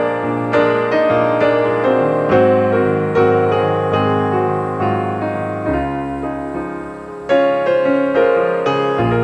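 Background piano music, notes struck one after another at an unhurried pace and left to fade. It softens briefly about two-thirds of the way through, then comes back in.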